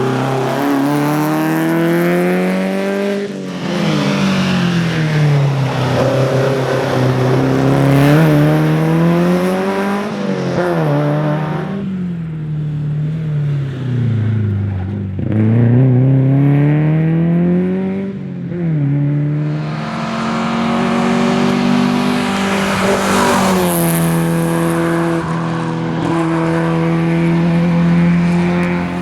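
Volvo 122S rally car's four-cylinder engine driven hard, the revs climbing and dropping again and again as it shifts and lifts for corners. About twelve seconds in the revs fall away for a few seconds before climbing again, then hold high and steady through the last several seconds.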